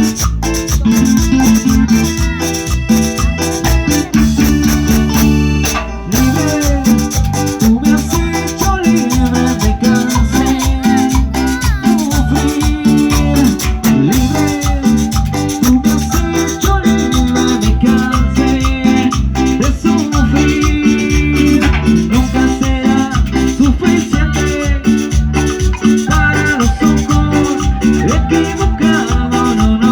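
Loud Latin dance music with a steady beat, shaken maracas and a bass line, playing continuously.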